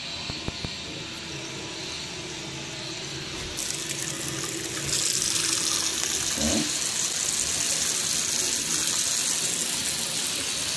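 Bathroom sink faucet running a thin stream of water that splashes into the basin and drain, a steady hiss that grows louder about four to five seconds in.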